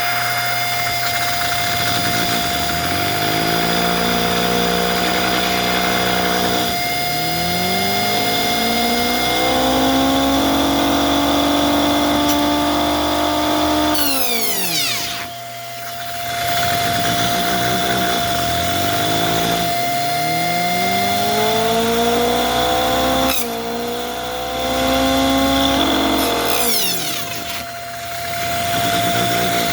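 Homemade Lego table saw, its blade driven by a Lego engine through U-joints, running with a high whine over a mechanical whirr. It speeds up with rising pitch several times and twice winds down sharply, about halfway through and near the end, as it cuts paper that jams the blade a little.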